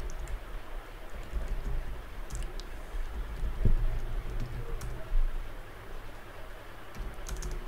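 Typing on a laptop keyboard: scattered, irregular keystrokes, with one louder thump about halfway through, over a steady low hum.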